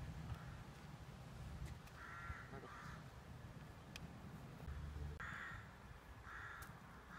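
Crows cawing faintly: a pair of calls about two seconds in, and two more a little after five seconds, over a low steady rumble.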